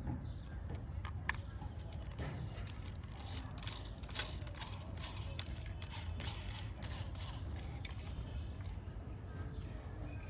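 Packaging being handled during an unboxing: irregular crinkling rustles and small clicks over a steady low hum.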